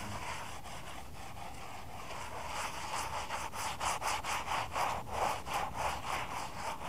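Wet sponge dabbing and wiping cleaning solution onto a brick to saturate it, in quick repeated strokes about three a second that begin a couple of seconds in.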